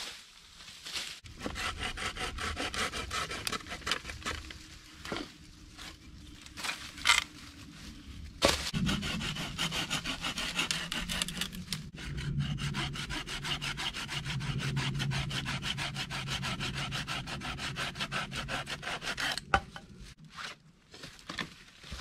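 Hand saw cutting wood in steady, quick back-and-forth strokes, with a break about eight seconds in and stopping near the end.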